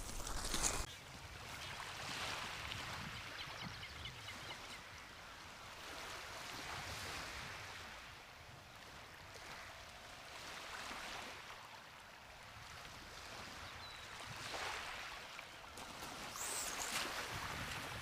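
Small waves washing gently on the beach, the noise swelling and easing every few seconds, after a brief louder rustle at the very start.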